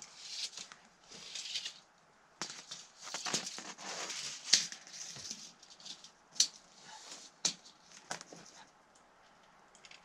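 Ice-shield roofing membrane being handled on the ground: bursts of rustling and scraping, then three sharp clicks in the second half.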